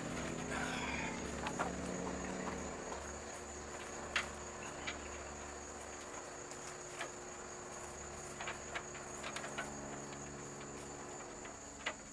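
Crickets trilling, a steady high-pitched insect tone, with a low hum that fades out about three seconds in and a few sharp clicks.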